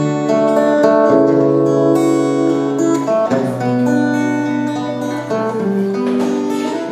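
Acoustic guitar strummed and played live, its chords ringing and changing about every two seconds.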